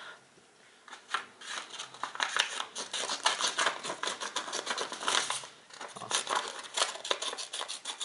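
Spring-loaded scissors of a Leatherman Juice CS4 multitool snipping through a sheet of paper in a quick run of short snips, with a brief pause about five and a half seconds in.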